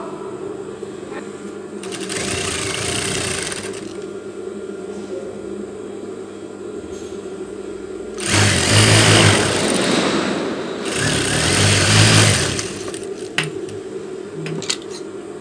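Industrial single-needle sewing machine stitching a seam in short runs: a brief run about two seconds in, then two longer runs from about eight to twelve and a half seconds, over a steady hum. A few light clicks follow near the end.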